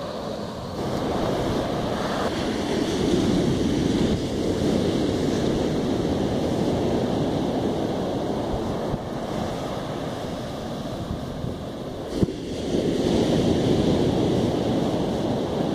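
Sea surf breaking and washing up a sandy beach, mixed with wind on the microphone; the rush of the waves swells louder twice. A short sharp knock comes about twelve seconds in.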